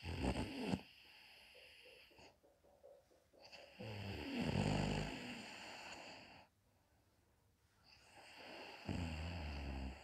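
A woman snoring in her sleep: a short snore at the start, a longer one about four seconds in, and another near the end, with quiet breaths between.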